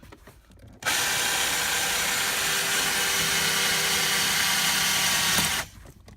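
Power drill running under load with a step drill bit boring into the steel of a car's brake pedal arm, for about five seconds of steady grinding before stopping abruptly. The metal behind the pedal is thicker than expected, and this bit broke during this drilling.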